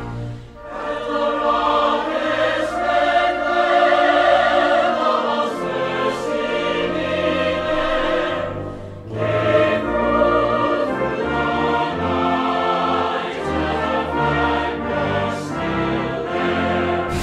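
Background music: a choir singing sustained chords over an orchestra, dipping briefly about half a second in and again around nine seconds in.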